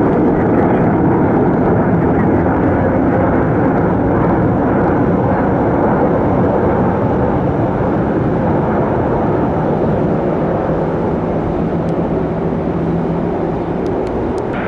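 Aircraft engines running loud and steady, slowly fading over the last few seconds.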